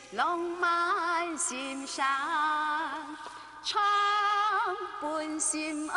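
A woman singing a slow melody with music, holding long notes with a wavering vibrato and sliding between them.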